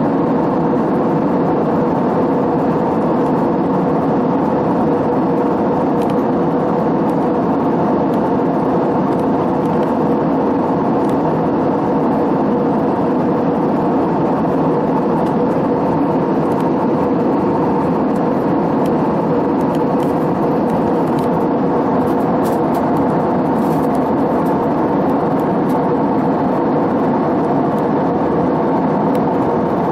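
Steady cabin drone of an Airbus A320-family jet airliner in cruise, engine and airflow noise heard from a window seat over the wing, with a steady hum running under the rush.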